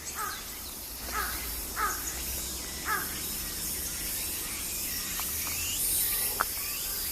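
A crow cawing four times in the first three seconds, short harsh calls about a second apart. The uploader takes them for an earthquake-warning call. Insects shrill steadily in the background.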